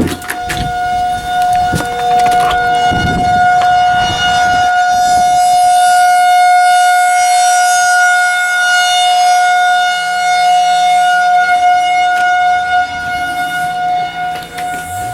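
Federal Signal 2001-SRN rotating outdoor warning siren sounding a steady tone, swelling louder and then easing off near the end as its head turns. It is sounded for a severe thunderstorm or tornado warning.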